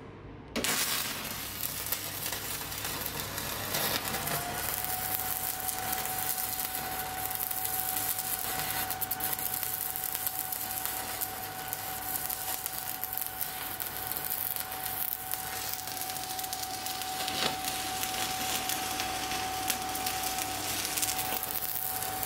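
Stick (MMA) welding arc from a REM Power WMEm 200i Lynx inverter welder burning a 3.2 mm electrode at 100 A. The arc strikes suddenly about half a second in and then runs as an even crackling hiss. A steady high whine rises and settles about four seconds in.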